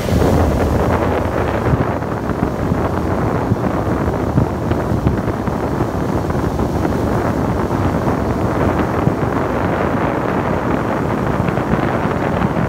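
Steady rushing noise on a moving boat: wind buffeting the microphone over the boat's motor and the water.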